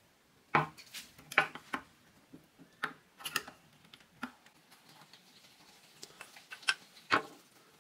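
Sharp metallic clicks and taps from a small paint tin being handled and its press-on lid pried off, about nine separate knocks scattered over several seconds.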